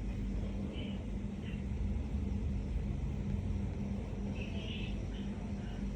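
A steady low rumble with a faint hum, and a few brief high squeaks about a second in and again near the end.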